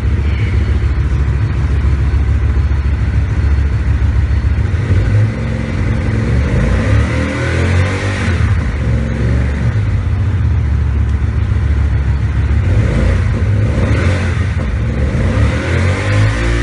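Hyosung GT250R V-twin through a Lixil aftermarket exhaust, idling and then revved up and back down by hand on the throttle with the bike standing still, a few times from about six seconds in.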